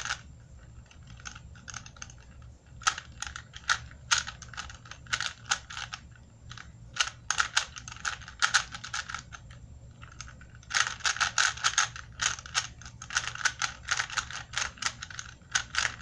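Plastic Rubik's Cube turned by hand during a solve: quick runs of clicking clacks as the layers are twisted, with short pauses in between.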